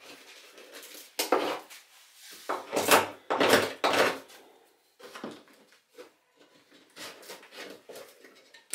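Plywood shipping crate being handled and unpacked: a series of sudden scrapes, rustles and knocks on the wood as packing tape is pulled off the lid, loudest about three to four seconds in.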